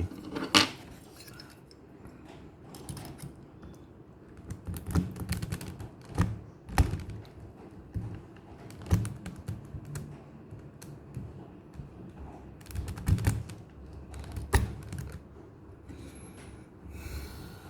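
Mechanical keyboard being handled while a switch and keycaps are fitted and pressed: irregular sharp clicks and plastic knocks, with softer handling rustle between them.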